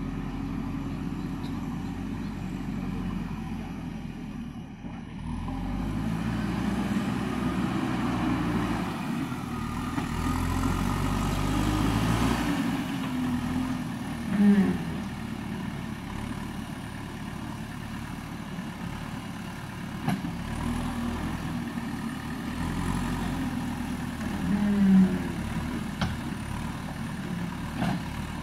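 A JCB backhoe loader's diesel engine working, revving up and down as the loader lifts and tips soil into a tipper truck. Two short, loud, low-pitched moan-like sounds stand out, about halfway through and near the end.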